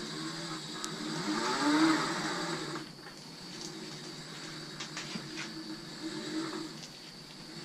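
A 24-volt DC electric motor driving an old push reel mower's blades: it whirs up in pitch, loudest about two seconds in, then cuts off sharply about three seconds in. A lower steady hum with a few light clicks follows.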